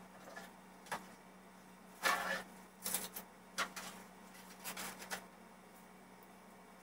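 Things being handled and moved about while shelves are cleared: a series of short knocks, clatters and rustles, the loudest about two seconds in, with a few more up to about five seconds in.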